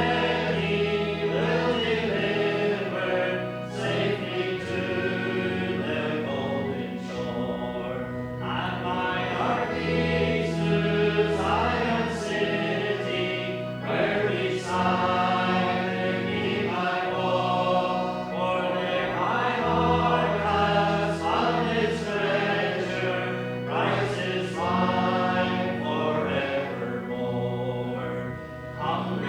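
A choir or congregation singing a slow hymn with instrumental accompaniment, held notes over a bass line that changes every couple of seconds.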